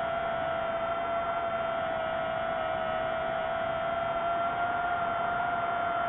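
DJI FPV drone's motors and propellers whining at a steady pitch while cruising, over a rushing hiss.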